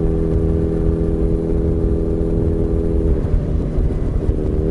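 Kawasaki Z900RS's inline-four engine running through an aftermarket MAVERICK silencer while cruising at 60 km/h in sixth gear. Its steady note wavers briefly about three seconds in, then steadies again.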